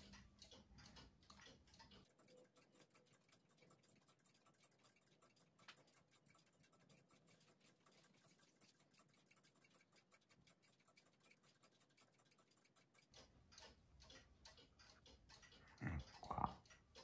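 Near silence with a clock ticking faintly and steadily. Two short louder sounds come near the end.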